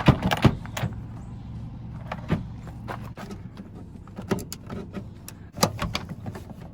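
A 2001 Toyota Tacoma's plastic interior door panel, its clips already popped, being wrestled loose from the door around the inside handle. Several sharp clicks and knocks come in the first second, then single knocks every second or two.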